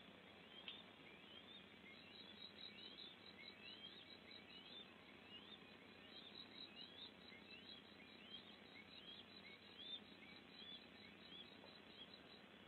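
Faint woodland ambience: a bird repeats a short rising whistle about twice a second, stopping shortly before the end, over a soft high insect pulsing.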